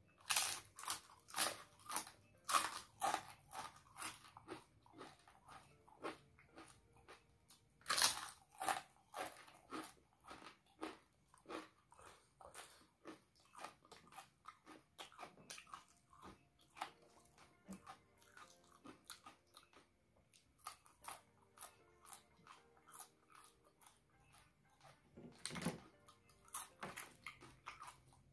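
Close-up crunching and chewing of rempeyek (crisp peanut crackers), a fast string of sharp bites and crunches. It is loudest at the start and about eight seconds in, eases to quieter chewing through the middle, and brings fresh loud crunches near the end.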